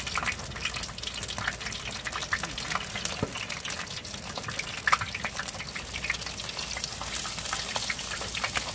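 Battered small fish deep-frying in a wok of hot oil: steady sizzling with dense crackling, and one sharper click about five seconds in.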